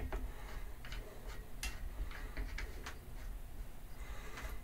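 A handful of light, irregular clicks and taps of a camera's quick-release plate being seated and clamped into a tripod ball head.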